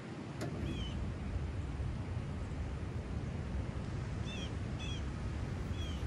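Outdoor wind rumbling on the microphone, with a small bird's short chirps a few times and a single sharp click shortly after the start.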